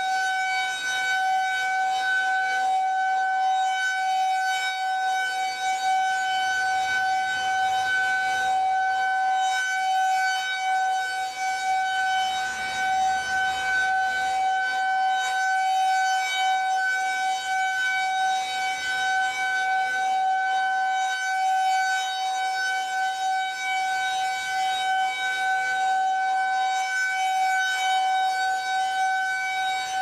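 Federal Signal 2001-SRN electromechanical rotating siren sounding its steady alert tone, one unbroken pitch held throughout while the horn turns.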